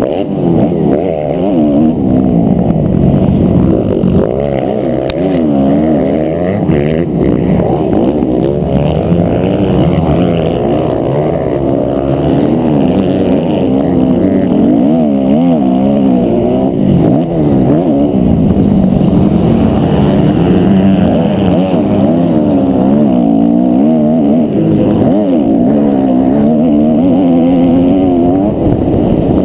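On-board sound of a 250 cc four-stroke motocross bike engine racing, its pitch constantly rising and falling as the rider opens and closes the throttle and shifts through the gears.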